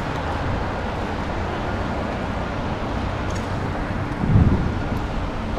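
Steady rush of wind on the microphone and road noise from a bicycle being ridden through traffic, with a brief louder low rumble about four seconds in.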